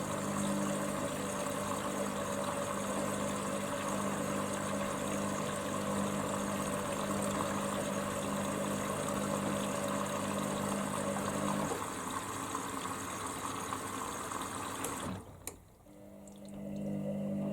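Hoover Dynamic Next washing machine filling with water early in its wash cycle: a steady rush of water with a low hum. About fifteen seconds in, the water cuts off suddenly, followed by a click. A moment later a low hum starts again.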